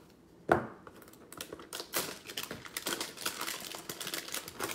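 Plastic wrap on a 2020 Donruss Optic football card box, with one sharp snip about half a second in as it is cut, then continuous crinkling and crackling as the wrap is pulled off by hand.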